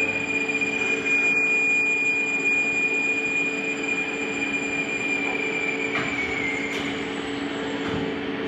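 Mori Seiki MV-40 CNC vertical milling machine running under power: a steady high whine over a lower steady hum, the whine dropping slightly in pitch near the end.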